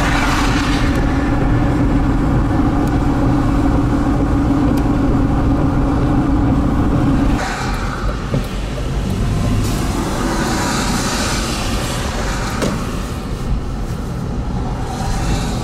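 Car road noise heard from inside a vehicle on a wet, icy highway: a steady drone with a low hum. About seven seconds in it drops and changes to a quieter, less even noise with swells of wet-road hiss.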